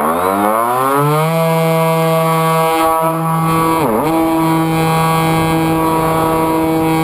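Electric motor and propeller of a Zephyr II flying wing throttling up for a hand launch. The whine rises in pitch for about a second and then holds steady, dipping briefly and recovering about four seconds in.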